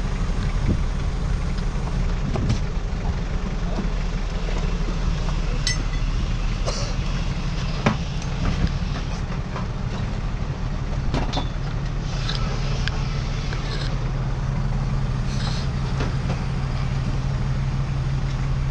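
An engine idling steadily, a low even hum, with a few sharp knocks and clatters over it.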